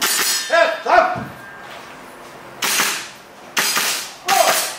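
Airsoft rifle firing single shots during a shooting drill: four sharp, hissing cracks, spaced irregularly, with short metallic clangs ringing between them.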